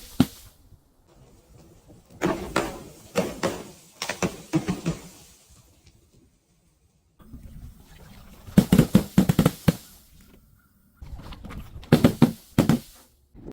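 Things being crushed: rapid cracking and crunching in three bouts, split by pauses, one of them a sudden dead silence.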